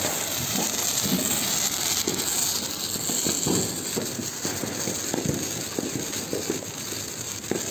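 Handheld sparklers burning with a steady hiss and many small crackles.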